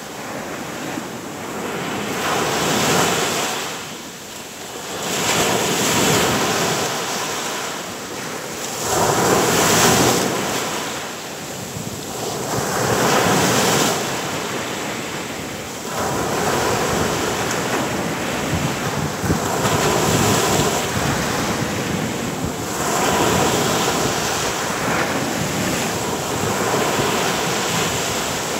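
Sea surf breaking on a sandy beach: waves crash and wash up the sand, swelling and ebbing every few seconds.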